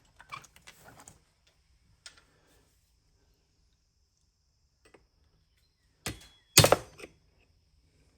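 Tool work on a small chainsaw's clutch while tightening it: a few light clicks and rattles, then two short, sharp metallic knocks about six seconds in, the second the loudest.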